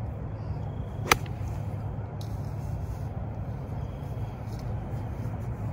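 A single crisp strike of a sand wedge hitting a golf ball off fairway turf about a second in, over a steady low rumble.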